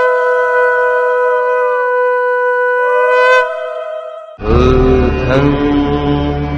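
A conch shell (shankha) blown in one long, steady note that dips and returns in pitch near the middle, then stops about three and a half seconds in. About a second later music with a drum and chanting voices begins.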